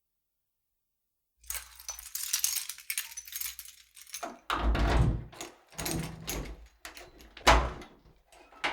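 Keys jangling and a key unlocking a door: metallic clinking and lock clicks, with a few heavier thumps and one sharp loud clack about six seconds after the sound begins. It starts after about a second and a half of silence.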